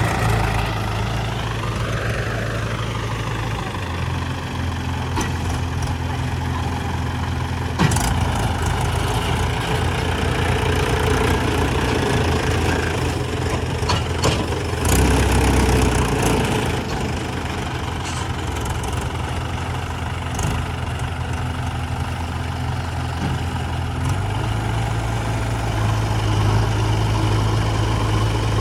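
Diesel engine of a JCB 3DX backhoe loader running while it digs and loads mud. Its note steps up about four seconds in and settles back near the end, with a sharp knock about eight seconds in and a louder low surge around the middle.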